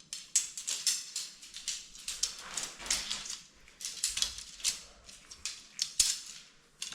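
Tent pole being broken down section by section and folded, with irregular light clicks and rattles as the segments knock together.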